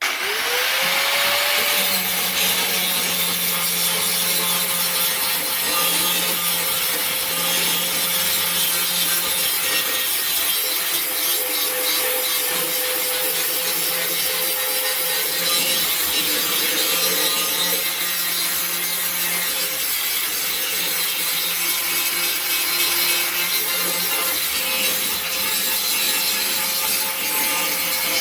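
Angle grinder spinning up to speed at the start, then running steadily as it grinds surface rust off a rusted steel lawnmower deck: a steady whine over a harsh rasping hiss.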